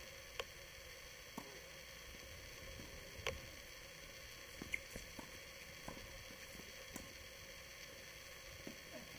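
Tennis balls struck by rackets and bouncing on a hard court during a doubles rally, heard as irregular sharp pops over a steady hiss. The pickup is a camera's built-in microphone.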